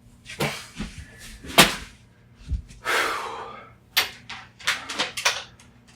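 A string of sharp cracks, clicks and knocks from a plastic wall adapter or USB plug being broken apart with hand tools. The loudest crack comes about one and a half seconds in, and a short rustling rush follows about three seconds in.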